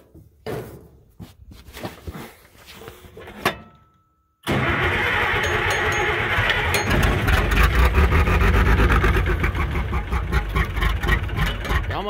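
White tractor engine running loudly just after an ether-assisted cold start, with a fast, even firing patter. Before it, a few scattered knocks and clicks of handling, then a sudden cut into the running engine.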